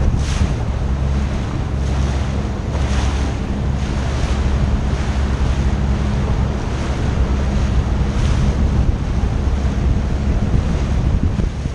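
Personal watercraft running at speed: a steady engine drone under water rushing past the hull. Spray splashes up a few times, and wind buffets the microphone.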